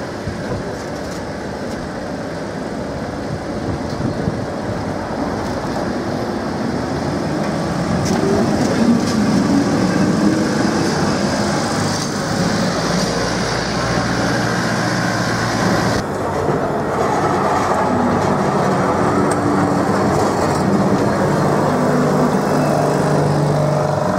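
Old yellow Lisbon Remodelado tram rolling past close by on its rails, with its wheel and running noise swelling as it nears. About two-thirds of the way in the sound changes abruptly, and near the end a small three-wheeled tuk-tuk approaches with its motor running.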